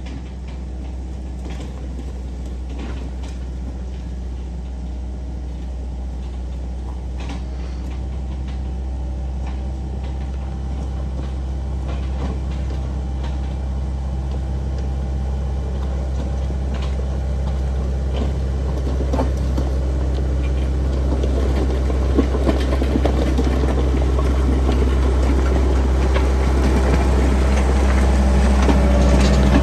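Heavy-equipment diesel engine running steadily, growing gradually louder, with a few scattered rattles and knocks.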